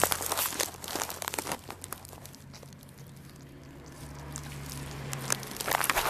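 Close crackling and rustling on cloth bedding, with clusters of short clicks in the first second and a half and again near the end, quieter in between, over a low steady hum.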